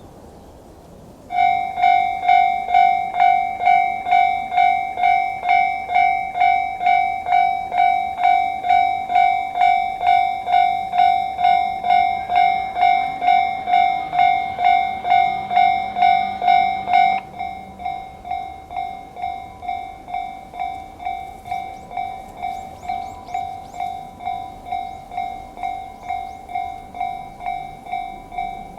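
Japanese railway level-crossing warning bell switching on: an electronic ding ringing about twice a second, becoming noticeably quieter roughly two-thirds of the way through.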